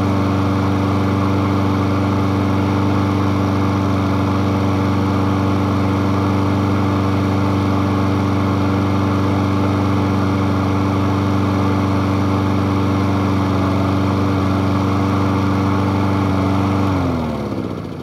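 Honda-engined walk-behind lawn mower running steadily, then shut off about a second before the end, the engine winding down with a falling pitch.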